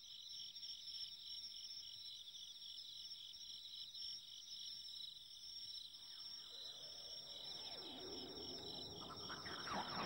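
Crickets chirping at night in a steady, even pulse. From about six seconds in, a swell of gliding sound builds up beneath the chirping and grows louder toward the end.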